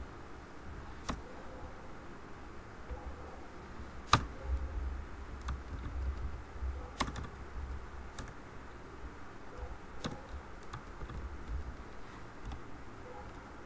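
Scattered computer keyboard and mouse clicks, single sharp clicks a second or two apart, over a low background hum.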